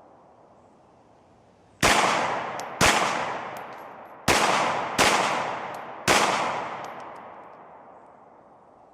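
Five 9mm pistol shots from a Glock 19X, fired in an uneven string over about four seconds, the second, fourth and fifth following quickly on the one before. Each shot is followed by a long fading echo.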